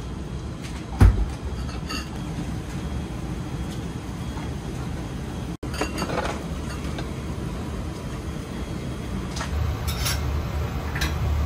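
Porcelain dishes clinking now and then as they are set down and handled, over a steady low kitchen hum, with one dull thump about a second in.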